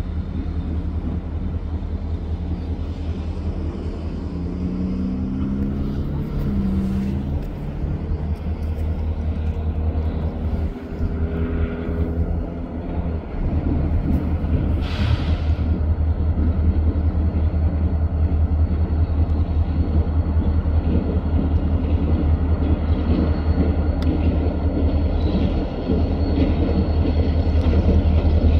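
Strong wind buffeting the microphone with a heavy low rumble, over a lone diesel locomotive approaching slowly, its engine running and growing louder through the second half.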